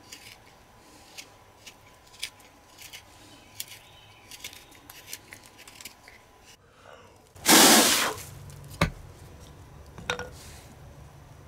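Hook knife shaving thin curls from the inside of a wooden spoon bowl: a run of short, irregular scraping cuts. About two-thirds of the way in comes a loud, brief rush of noise, then a sharp knock, with another lighter knock near the end.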